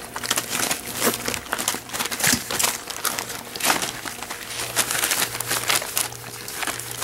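Australian labradoodle puppies eating wet canned food from a stainless steel bowl: irregular crinkling of the newspaper beneath them and sharp clicks and rustles throughout.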